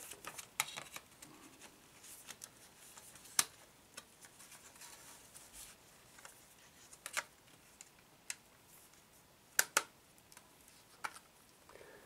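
Plastic CD case and packaging being handled: scattered sharp clicks and taps with light crinkling, the loudest a close pair of clicks near the end.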